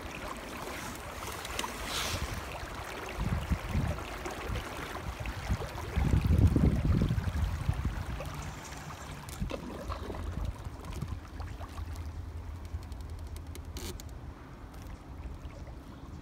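Water lapping and trickling along a canoe hull as it moves across a lake, with wind on the microphone. A louder low rumble comes about six seconds in and lasts a second or so.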